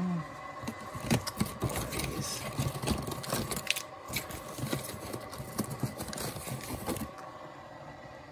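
Irregular clicking and clattering of plastic K-cup coffee pods and mugs being moved about on a wooden cupboard shelf while a pod is picked out, stopping about seven seconds in.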